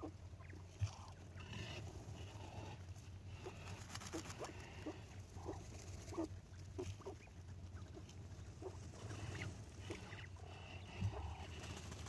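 A group of quail giving many short, soft peeping calls, thickest in the middle, over a low steady hum, with a dull thump about a second in and another near the end.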